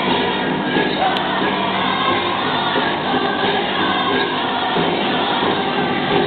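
Powwow drum group singing a dance song in chorus, the voices sustained and loud without a break.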